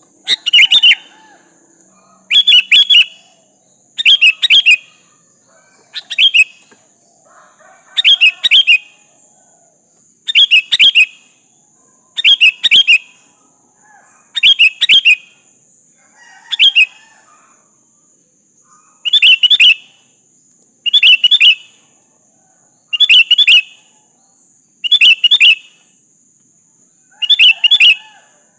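Sooty-headed bulbul calling: a short, bright, chattering phrase repeated about every two seconds, with one longer pause about two-thirds of the way through. A steady faint high hiss runs underneath.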